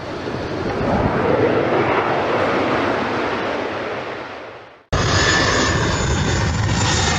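Airplane engine noise swelling as the plane passes, then fading out to nothing about five seconds in. After a sudden cut, a steady loud airplane engine run with a high whine over it.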